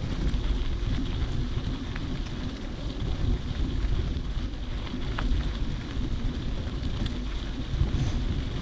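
Wind buffeting the microphone outdoors: a steady low rumble with no clear events in it.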